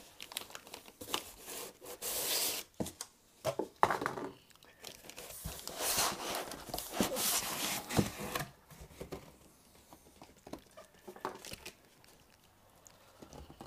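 Clear plastic bag crinkling and foam packing rubbing against cardboard as a boxed oscilloscope is lifted out by hand, in irregular rustles and scrapes that thin out over the last few seconds.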